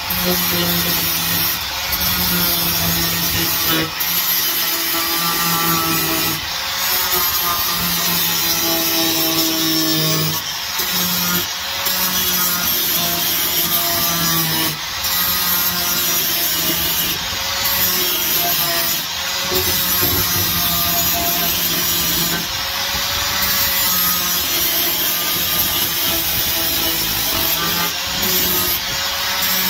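Corded electric angle grinder grinding welds flat on a car's steel floor pan, a steady whine with brief breaks every couple of seconds.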